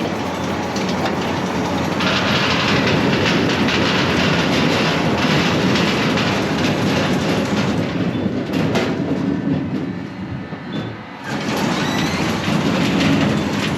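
Potato harvester running, its chain digging webs clattering as potatoes and dirt tumble through. The clatter eases briefly about ten seconds in, then picks back up.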